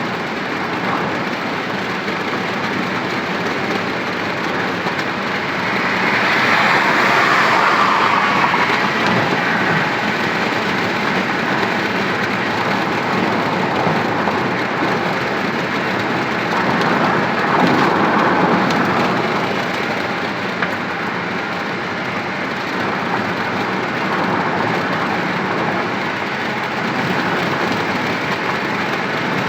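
Steady road and engine noise of a moving vehicle, swelling louder twice, about six seconds in and again around eighteen seconds.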